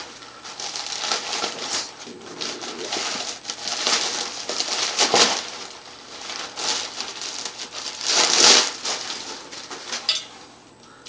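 Clear plastic wrapping crinkling and rustling as it is pulled off a bicycle mag wheel, in uneven surges, loudest about five and eight and a half seconds in.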